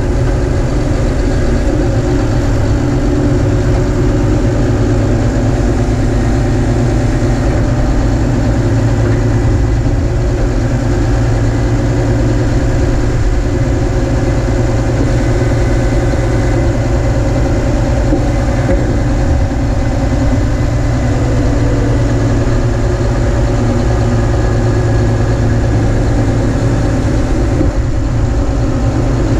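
Snowplow truck's diesel engine running steadily under load, with a steady rushing noise of snow being pushed and sprayed off the plow blade.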